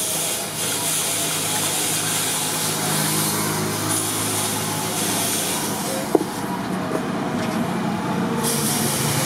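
Water poured from a bottle onto a hot forged steel claw hammer head held in tongs, hissing and sizzling as it flashes to steam over the steady splash of the stream: the steel being quenched. A single sharp click comes about six seconds in.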